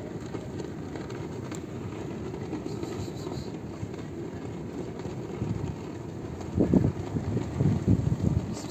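Wind rumbling on a phone's microphone, low and steady at first, then gusting harder and louder about two and a half seconds before the end.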